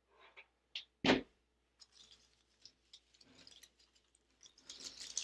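A single knock about a second in, then light crackling and rustling of faux greenery stems and dry grapevine being handled as a sprig is pushed into a grapevine wreath.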